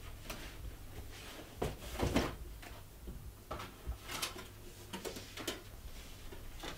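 A box, papers and books being handled on wooden closet shelves: irregular knocks and rustling, with the loudest thuds about two seconds in.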